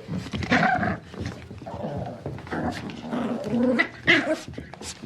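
Puppy making a string of short, irregular calls, the loudest about four seconds in.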